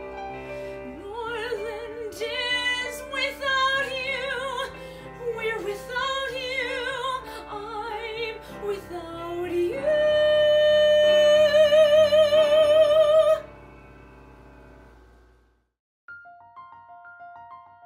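A woman sings in musical-theatre style over piano accompaniment, with wide vibrato. Her phrase climbs to a long, loud high note, held with vibrato, that stops abruptly a little past two-thirds of the way through. The piano fades to silence, and near the end a light, plinking keyboard tune starts.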